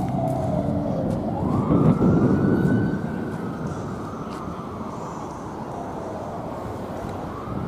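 Emergency vehicle siren on a slow wail: the tone falls, rises again about a second in, holds high, then slides slowly down, over the rumble of traffic.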